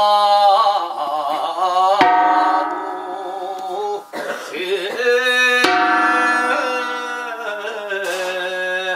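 Korean traditional music: a sustained, wavering melody over a low steady drone, changing abruptly about two and five and a half seconds in.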